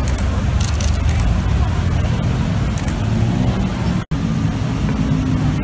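Steady rumble of city street traffic. The sound cuts out for an instant about four seconds in, then resumes.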